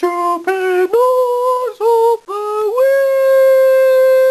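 A single voice singing a short unaccompanied tune of six notes. The first five are brief, and the last and highest is held steadily for about two seconds.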